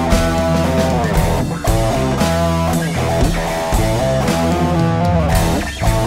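Instrumental rock jam: electric guitar playing sustained and sliding notes over bass guitar and a drum kit.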